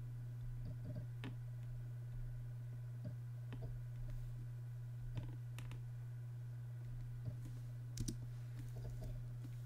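Irregular computer mouse clicks, a dozen or so short clicks spaced unevenly, made while dragging crop handles in photo-editing software, over a steady low hum.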